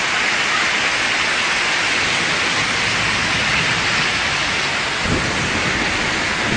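Very heavy rain pouring down in a steady rushing hiss, with strong wind.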